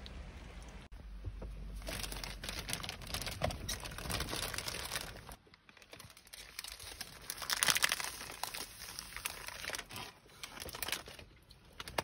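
Clear plastic food wrapper crinkling and rustling as it is handled and pulled off a baguette, starting about two seconds in. The sound is loudest a little past halfway and thins out near the end.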